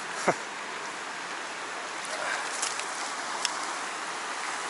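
Shallow mountain stream running over rocks, a steady rush of water. A brief thump about a quarter of a second in, and a couple of faint ticks later.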